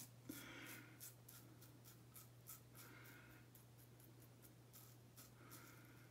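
Edwin Jagger DE89 double-edge safety razor scraping stubble on the upper lip in a quick series of short, faint strokes.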